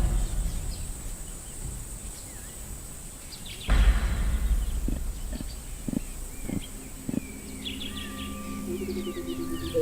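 Natural outdoor ambience: a sudden loud burst of noise about four seconds in, then birds chirping and calling, getting busier over the last couple of seconds.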